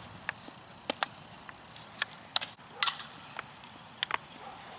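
About half a dozen sharp, separate knocks and pops over a faint steady background: the sounds of softball practice, balls smacking into leather gloves.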